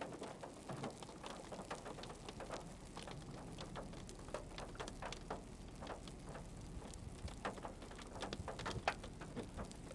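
Raindrops tapping irregularly, a few scattered ticks each second, over a faint low background rush.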